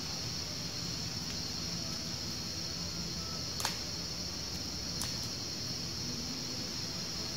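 Insects droning steadily in a high, even pitch, with two short sharp clicks a little past the middle.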